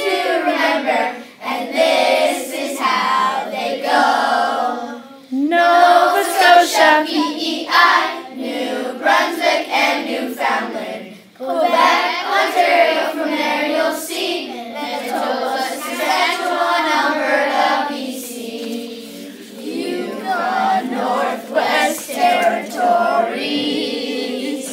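A class of young children singing together in unison, a song about the provinces of Canada, in phrases with short breaths between lines.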